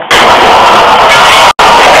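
A van crashing into and scraping through a sectional garage door, with metal panels crunching and dragging. The noise is loud enough to overload the security camera's microphone, so it comes through as one continuous harsh, distorted noise. It begins just after the start and cuts out for a moment about one and a half seconds in.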